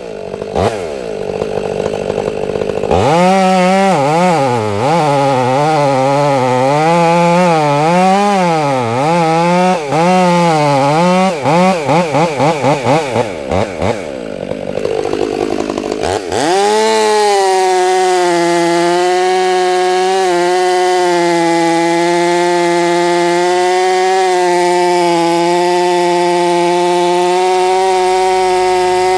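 Chainsaw engine revving up and down repeatedly, then held at a steady high speed for the second half while bucking tree sections down to size for a chipper.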